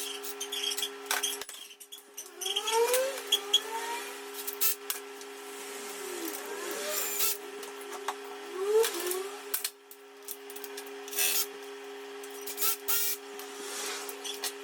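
Workshop tool noise while a motorcycle engine is being assembled: several short rising whirs like a cordless drill or screwdriver spinning up, with sharp clicks and knocks of tools on metal, over a steady hum that cuts out abruptly twice.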